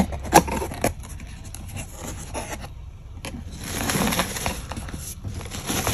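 Cardboard shipping box being opened by hand. A few sharp cardboard clicks and knocks come in the first second, then a rustling scrape about three seconds in as the flaps are folded back.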